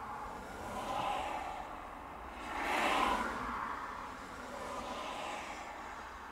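Traffic passing on the road outside, heard from inside a parked car: a few swells of tyre and engine noise, the loudest about three seconds in.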